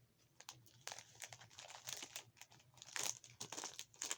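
Crinkly packaging being handled, with a run of irregular crackles that grows busier and louder toward the end.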